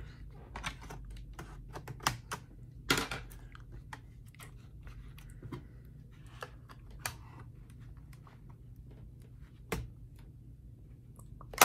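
Scattered sharp clicks and snaps from an HP 15-series laptop keyboard being pried up out of its palm rest: plastic edges and retaining clips popping loose and keys rattling under the hands. The loudest snaps come about two and three seconds in and again near ten seconds, over a faint low hum.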